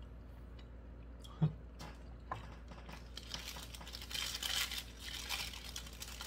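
A single sharp knock about a second and a half in, then a paper burger wrapper crinkling and rustling as it is peeled back from the burger.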